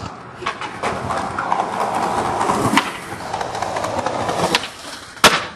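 Skateboard wheels rolling on concrete, with several sharp board clacks and a loud smack about five seconds in.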